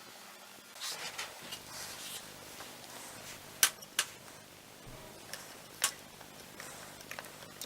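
Light scraping and rustling of small hand work, with a few sharp metallic-sounding clicks: a pair a little before halfway and another about three quarters of the way through.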